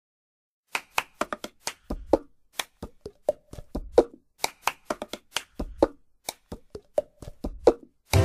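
Hand claps and a plastic cup tapped, slapped and set down on a tabletop in a quick, syncopated cup-game rhythm, starting about a second in. Sustained instrumental music joins at the very end.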